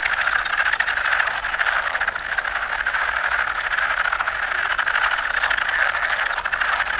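A dense chorus of many frogs calling at once, merging into a continuous, rapidly pulsing high-pitched trill.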